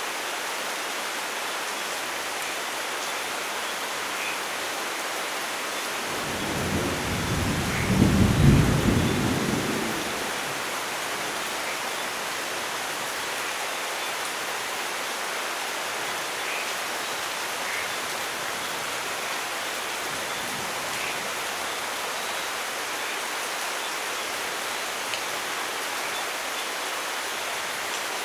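Steady rainfall hissing throughout, with one roll of thunder that swells about six seconds in, peaks, and fades away within about four seconds.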